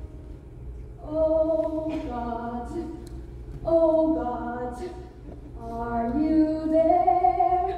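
Young voices of a children's theatre cast singing a song from the musical in harmony, in three phrases, with little or no accompaniment; the last phrase climbs and is held.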